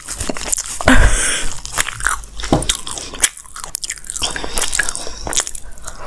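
Close-miked eating sounds from a lavalier microphone: chewing with wet mouth clicks and smacks, and a loud rustle about a second in.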